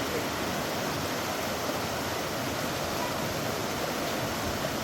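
Waterfall on a moorland river, its falling water making a steady rushing noise.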